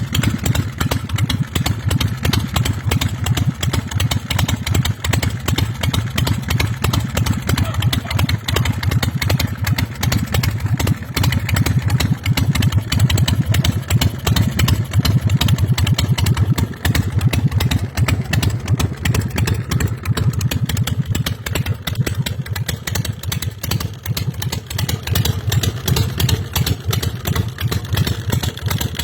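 American Iron Horse Texas Chopper's carburetted 1800 cc V-twin engine idling with a steady, lumpy beat. It runs a little louder from about ten seconds in, then eases back.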